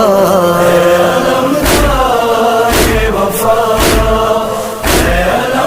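An Urdu nauha, a Shia lament, sung in long held, wavering notes, with a heavy thump about once a second keeping the beat.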